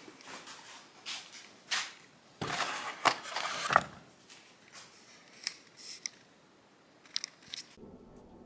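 Scattered small knocks and clicks of things being handled, with a short burst of scraping in the middle.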